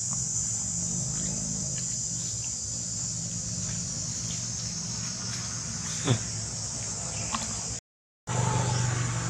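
Steady outdoor background of a high, even insect drone over a low engine-like hum. About six seconds in comes one short squeak that falls sharply in pitch. The sound cuts out completely for a moment near the end.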